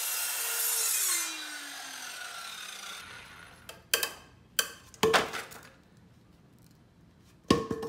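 Circular saw finishing its cut through a 4x4 wooden post, then the motor spinning down, its pitch falling over about a second. After that, several wooden knocks as the cut-off piece of the post is lifted and handled, with a sharp, loud knock near the end.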